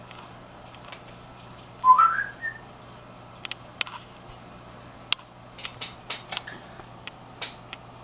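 African grey parrot giving one short rising whistle about two seconds in, followed by a scatter of sharp clicks.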